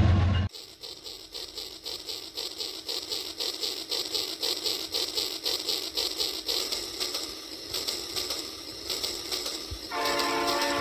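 Battery-powered toy steam locomotive and its tank cars running along plastic track with a fast, even rhythmic clicking. About a second before the end the toy's electronic whistle starts, a steady chord of several pitches.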